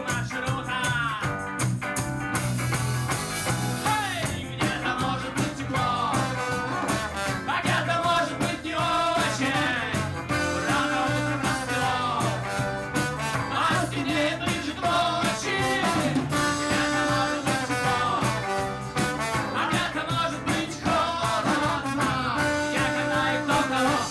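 A live rock band playing with trombone, accordion, electric and acoustic guitars and drums.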